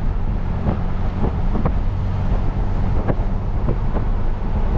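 Car driving on a road, heard from inside the cabin: a steady low rumble of engine and tyres, with a few light knocks and clicks.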